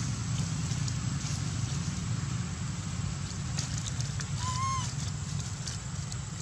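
A single short macaque coo, about half a second long, bending slightly up and then down, a little after halfway. It sounds over a steady low rumble and a few faint rustles.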